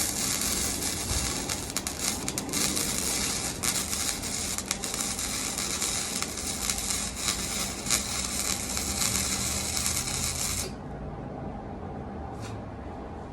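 Flux-core (gasless MIG) welding arc crackling steadily on 16-gauge thin metal, cutting off about three-quarters of the way through; a quieter low hum carries on after.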